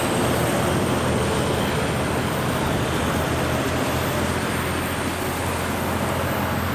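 Road traffic on a hill climb: a heavy haulage truck's diesel engine drones steadily as it pulls uphill with a low-loader, and following vehicles pass close by.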